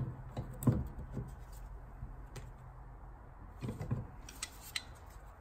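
Irregular metallic clicks and light knocks of a hand tool tightening a fitting on a diesel fuel filter held in a bench vise, a few taps close together about a second in and again near four seconds.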